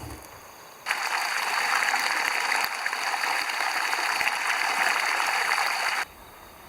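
Running water: a steady rush that starts abruptly about a second in and stops abruptly about six seconds in.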